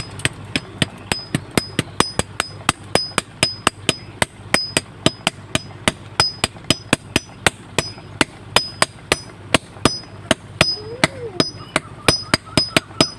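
Blacksmith's hammer striking metal on an anvil in a steady rhythm, about four blows a second, many of them with a short high metallic ring.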